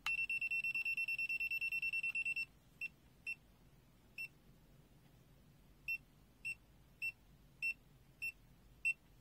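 BSIDE A5X multimeter's non-contact voltage (NCV) beeper in low-sensitivity mode, sensing the electric field of a live charger cable: one long high beep lasting about two and a half seconds, then nine short single beeps at uneven gaps as the tip moves along the cable.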